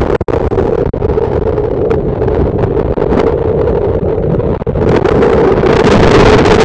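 Hurricane storm surge and wind, heard through a trail camera's small microphone as a loud, rough roar of churning floodwater and wind with a steady hum running through it. It cuts out briefly near the start and again just before the midpoint, and grows louder and harsher over the last couple of seconds.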